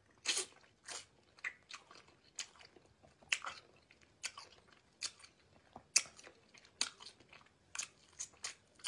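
A person chewing crunchy food close to the microphone: a series of short, sharp crunches, about two a second at uneven spacing.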